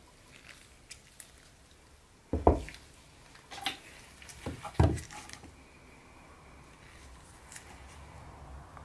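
Handling knocks on a concrete floor as a metal varnish tin and a wooden drawer are set down and moved: two loud knocks about two and a half seconds apart, with a few lighter clicks around them.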